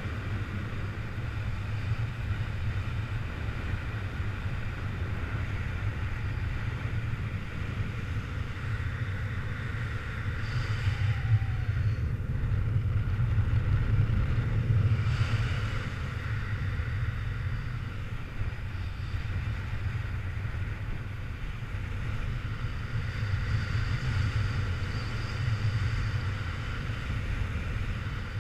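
Wind rushing over a camera microphone in flight under a paraglider: a steady low rumble that swells a little around the middle.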